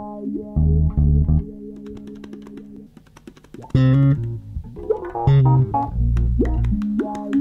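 Instrumental opening theme music with plucked notes over deep held bass notes. It drops to a quieter passage about two seconds in and comes back louder at around four seconds.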